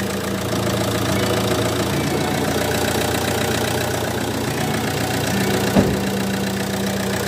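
Fiat Ducato diesel engine running steadily at idle, with a single sharp click about six seconds in.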